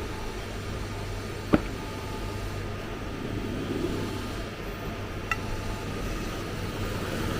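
CNC milling machine running with a steady hum and whir. There is a sharp click about one and a half seconds in and a fainter one a few seconds later.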